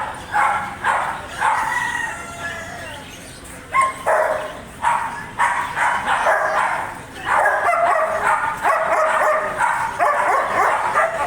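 German Shepherd barking repeatedly in sharp, loud barks. The barking eases briefly about three seconds in, then comes fast and almost without a break through the second half.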